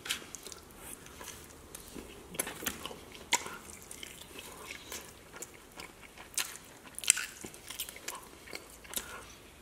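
Close-miked mouth sounds of a man eating sauced chicken wings: irregular wet bites, smacks and chewing, with a few sharper snaps scattered through.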